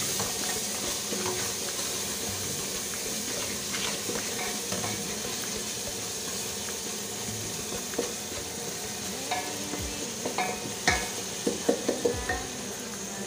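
Chopped tomatoes, onions and green peppers sizzling steadily as they fry in oil in an aluminium saucepan, stirred with a wooden spoon. From about eight seconds in, the spoon knocks and scrapes against the pot more often.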